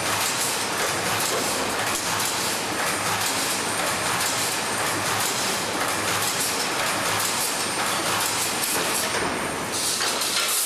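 PLT Spacer K4K1 B wire spacer welding machine running: a continuous dense mechanical clatter and rattle over steady noise.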